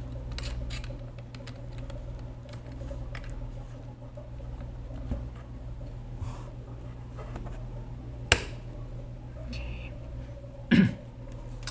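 Steady low hum with faint clicks of a USB plug being handled and pushed into a Raspberry Pi's port, then a single sharp click about eight seconds in and a brief louder sound near the end.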